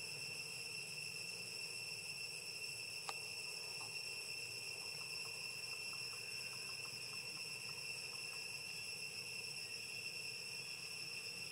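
Steady high-pitched insect chorus holding one unchanging pitch, with a single sharp click about three seconds in.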